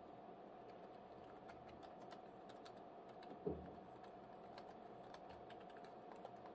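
Typing on an Asus ROG Zephyrus G14 laptop keyboard: soft, pretty quiet key clicks throughout, with one louder, deeper key thump about halfway through.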